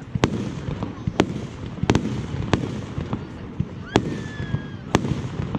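Fireworks display: sharp bangs of shells bursting, about one every second, over a steady low background noise. A short whistle rises and then holds for about a second near the middle.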